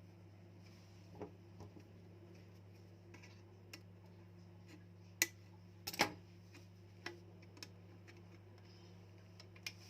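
Scissors snipping through a plastic phone-case cover: a scatter of separate sharp clicks, the loudest about six seconds in, over a steady low hum.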